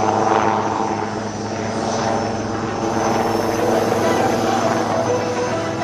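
HAL Prachand light combat helicopter in flight: steady rotor and twin turboshaft engine noise with a hum of steady tones, gaining some hiss about halfway through.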